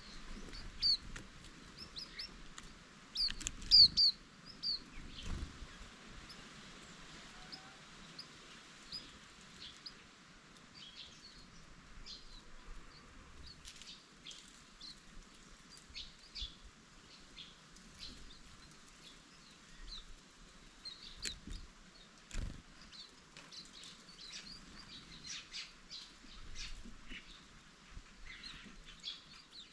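Green-backed white-eyes giving many short, high chirps and twitters, loudest a few seconds in, with a few soft low thumps mixed in.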